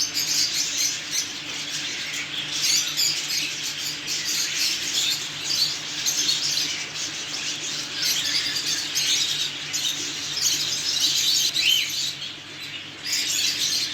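Many caged small birds chirping and squawking together in a continuous dense chatter, with a faint steady low hum underneath.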